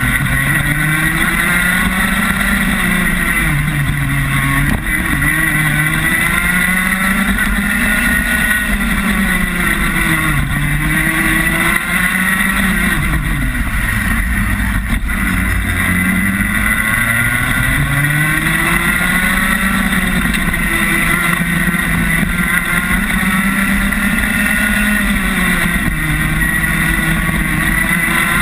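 Rotax Max 125 cc single-cylinder two-stroke kart engine heard onboard at speed, its pitch climbing along each straight and dropping off into each corner, again and again.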